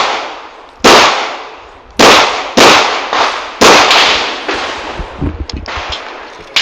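Five handgun shots, unevenly spaced, the last two in quick succession, each dying away with a short echo. A few light clicks follow.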